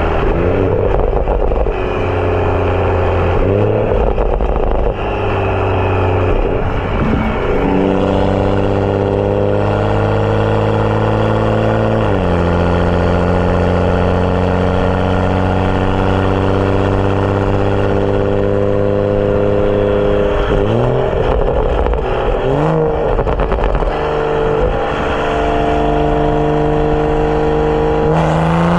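BMW F30 335i's turbocharged N55 inline-six, with a catless downpipe and M Performance exhaust, pulling through the gears: the engine note rises and drops at each shift several times, holds steady at a cruise for several seconds, then rises again near the end.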